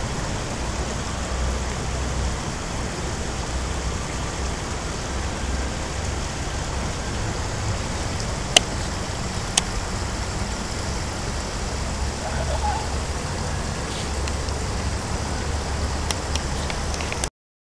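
Steady ambient background noise: a low rumble under an even hiss, with two sharp clicks about a second apart near the middle. It cuts off suddenly near the end.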